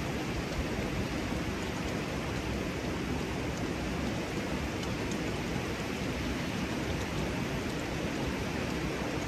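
Steady rush of running water from a small cascade in a hot-spring stream.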